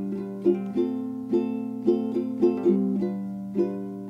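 Background music: a plucked string instrument such as a ukulele picking a gentle melody, each note ringing and fading before the next.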